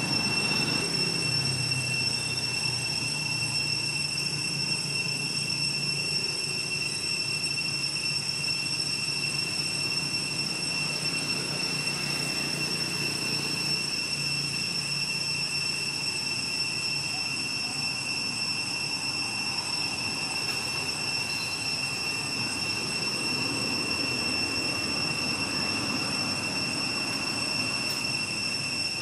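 Steady high-pitched insect drone, one constant whine with a higher tone above it, over a low hum that fades out about halfway through.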